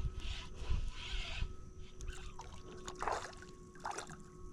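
Wind rumbling on the microphone, with a few short splashing, rustling noises as a small redfish is reeled in beside a kayak.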